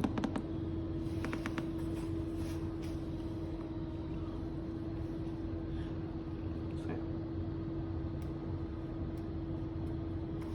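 Steady machine hum with one constant tone over a low rumble, with a few faint light clicks.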